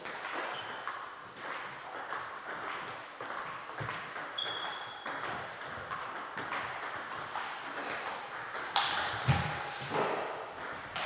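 Table tennis rally: the ball clicks back and forth between bats and table in a quick run of sharp pings, with a few louder knocks a little before the end.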